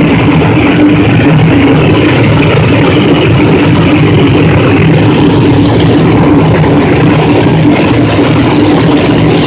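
Corn flakes processing line machinery running, with the vibrating stainless-steel trough conveyor carrying the cereal pellets: a loud, steady mechanical hum over an even noise.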